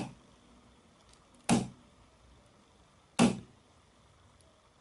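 A pointed metal tool striking a Sony Ericsson Xperia smartphone, three sharp knocks about a second and a half apart.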